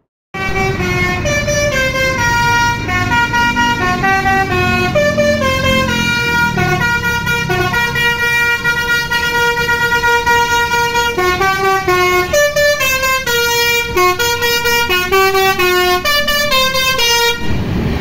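A bus's Basuri telolet horn playing a quick multi-note tune: several horn tones sound together, stepping up and down in pitch a few times a second, over a low engine and traffic rumble. The tune stops shortly before the end.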